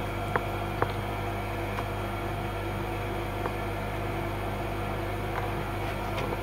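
Steady low electrical hum with a fan-like hiss underneath, and two light clicks in the first second as tools are picked up on the bench.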